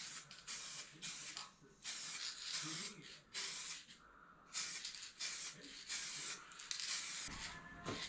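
Aerosol spray-paint can spraying in a long run of short hissing bursts, each under half a second, with brief pauses between.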